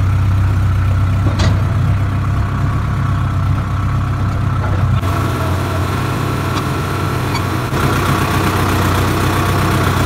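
Sonalika tractor's diesel engine running steadily, heard from the driver's seat, with a brief click about a second and a half in.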